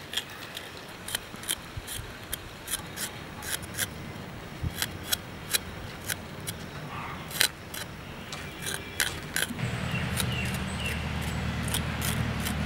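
Knife blade scraping and clicking against jackfruit seeds as their skins are pared off by hand, in short, irregular strokes. A steady low hum comes in about ten seconds in.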